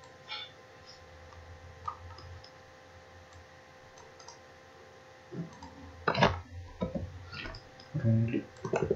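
Computer mouse clicking, a few faint clicks and one sharper click about six seconds in, over a faint steady hum. A short murmur from a voice comes near the end.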